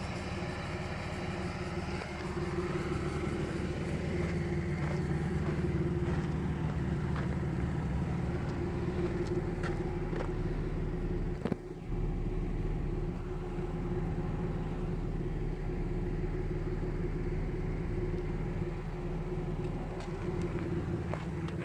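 Camaro RS's 3.8-litre V6 engine running steadily with a misfire, with one brief break and jolt in the sound about halfway through.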